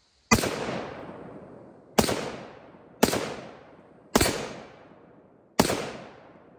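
Five shots from an AR-10 semi-automatic rifle in .308 with a 20-inch barrel, fired about a second to a second and a half apart, each trailing off in a long echo.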